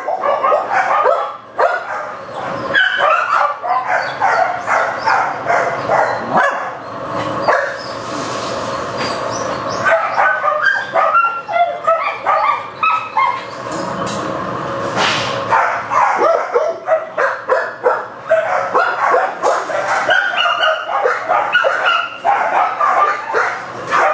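Many kennelled shelter dogs barking at once, a dense, overlapping din that eases off briefly a few times.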